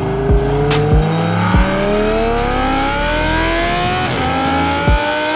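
Supercharged Audi R8 V10 with a Valvetronic aftermarket exhaust accelerating hard. Its engine note climbs steadily for about four seconds, drops with an upshift, then climbs again in the next gear. Background music with a steady drum beat plays underneath.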